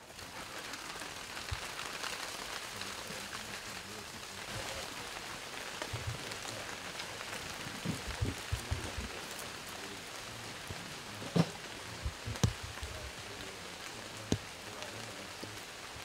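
Steady outdoor hiss with a few short dull thumps, the loudest about eleven and twelve seconds in.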